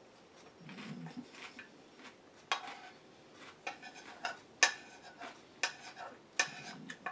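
Metal cutlery scraping and clinking against a ceramic bowl: a string of sharp clinks, the loudest about halfway through.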